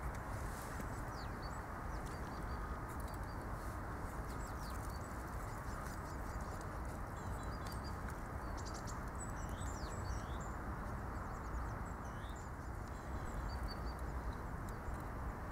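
Small birds giving short, high chirping calls, scattered through, over a steady low background noise.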